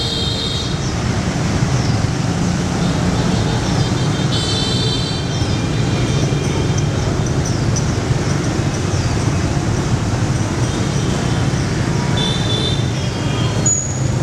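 Dense motorbike and scooter traffic passing by, a continuous din of small engines. High-pitched scooter horns beep briefly three times: at the start, about four seconds in, and near the end.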